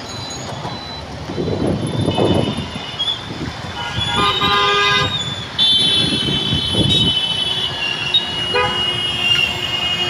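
Vehicle horns honking in slow traffic over a steady rumble of engines and tyres on a waterlogged road. One horn sounds about four seconds in, then a long high horn holds from just past halfway to the end, with a shorter one joining near the end.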